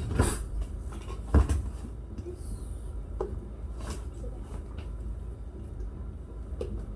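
Kitchen clatter from a child fetching a spoon at the silverware drawer. There are two sharp knocks, the louder one about a second and a half in, then a few light clicks of utensils.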